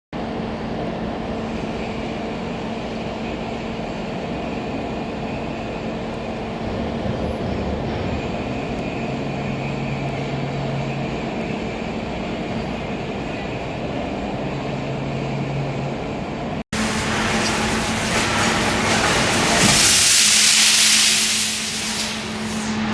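Hydraulic baler shear running: a steady machine hum with a constant tone. After an abrupt cut it turns louder and harsher, with a loud hissing, grinding stretch of about two seconds near the end before it eases.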